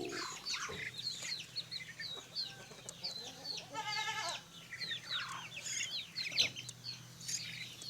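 Free-range village chickens feeding around a rooster, calling with many short, high, falling peeps and a longer clucking call about four seconds in.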